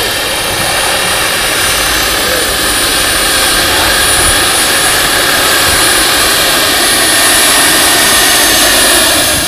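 Turbine engine and rotor of a large-scale radio-controlled Aérospatiale SA 315B Lama helicopter in flight: a steady high-pitched turbine whine over the rush of the rotor, growing a little louder as the helicopter comes closer.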